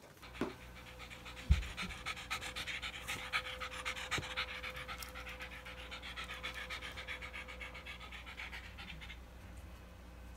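Shiba Inu dog panting fast and evenly, about four breaths a second, stopping about a second before the end; the dog is frightened of the kitten. A single dull thump comes about a second and a half in.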